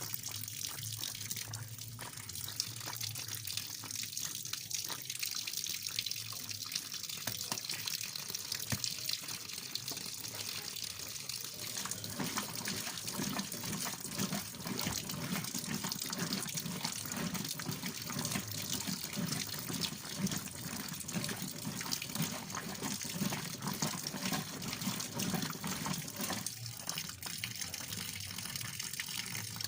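Washing machine with water running and sloshing inside it, a steady hiss; a lower, rougher sound joins about twelve seconds in and fades out a few seconds before the end.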